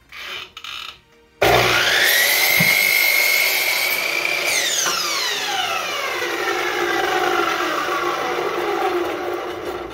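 A few light clicks, then a Harbor Freight compound miter saw's motor starts with a rising whine and holds a steady whine while the blade is brought down through a small piece of wood. About four and a half seconds in the motor is switched off, and the whine falls steadily in pitch and fades as the blade coasts down. This is a test cut on the freshly repaired saw.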